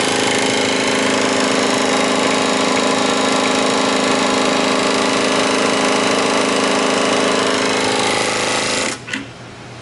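Programmable industrial sewing machine running steadily at speed in bobbin-winder mode, spinning the bobbin winder to fill a bobbin; it stops abruptly about nine seconds in.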